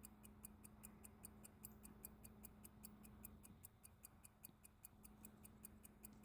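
1907 Elgin 18-size pocket watch with a 7-jewel grade 288 movement ticking faintly and steadily, about five ticks a second.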